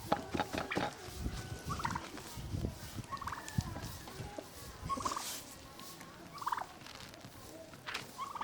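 Domestic fowl calling: five short, rapidly pulsing calls about a second and a half apart, with irregular knocks underneath in the first half.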